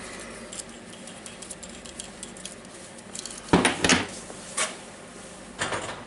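Small metal tools and parts clinking and clanking as they are handled and set down, with a few sharp metallic knocks in the second half.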